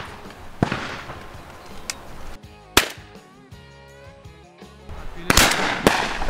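Shotgun shots at passing doves: four sharp reports, the loudest near the middle and the last two about half a second apart near the end, over background music.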